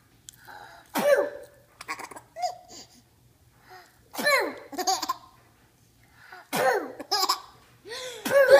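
A five-month-old baby giggling in about five short bursts of laughter with pauses between them, the biggest burst near the end.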